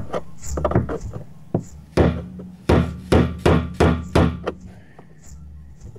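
A hammer strikes a screwdriver set against the plastic locking ring of a VW Golf 5's in-tank fuel pump flange, tapping the ring round to seat it. A few scattered knocks come first, then a run of about seven sharp strikes in quick succession, which stops well before the end.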